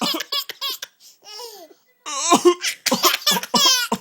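A baby laughing hysterically in repeated short bursts. A softer breath-like laugh and a brief pause come about a second in, then louder laughter that rises in pitch into squeals near the end.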